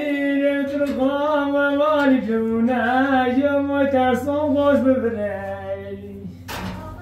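A person singing, with long held notes that waver and slide in pitch; near the end the voice settles on a lower held note and fades.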